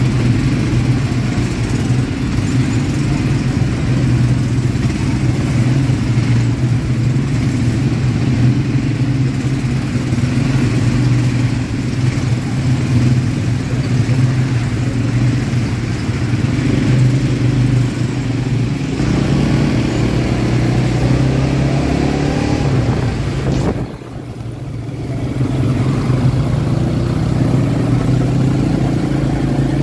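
ATV engine running under way, a steady loud drone. About three-quarters through it rises in pitch, briefly drops off, then builds back up as the throttle is opened again.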